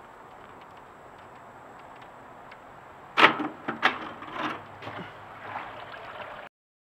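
Septic Genie's plastic canister knocking and scraping against the plastic septic riser as it is lowered in on its rope. A sharp knock comes about three seconds in and a second one just after, then lighter knocks and scraping, before the sound cuts off suddenly.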